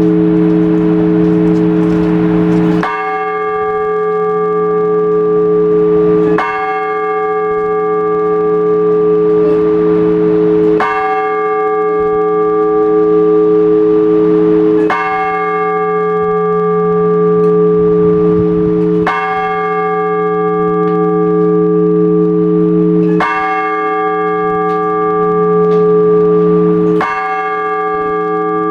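Orthodox church bell struck slowly and evenly, seven strokes about every four seconds, each ringing on into the next with a long low hum. It is the bell ringing that calls the faithful to the all-night vigil.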